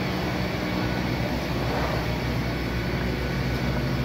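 Steady low drone of a running engine or machine, unchanging throughout.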